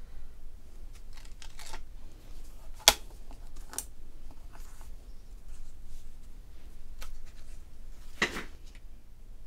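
Hands working a magnetic stamp press: a sharp plastic click about three seconds in as the lid is lifted off the stamped card, light clicks and taps as the holding magnets are moved, and a scraping rustle of card stock being slid out a little after eight seconds.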